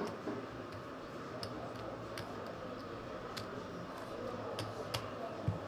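Poker chips clicking as they are handled and stacked on the table, sharp irregular clicks about once a second over a low room hum.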